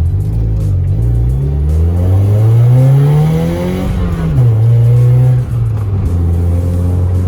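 BMW E30's engine accelerating, its pitch rising steadily, then falling sharply about four seconds in at a gear change and holding steady. There is a brief drop in level about five and a half seconds in.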